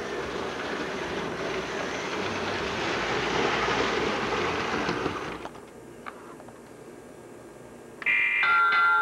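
American Flyer S-gauge model train running along the track, a steady rolling rumble that swells, then drops away abruptly about five seconds in, leaving a low hum and a single click. Music starts near the end.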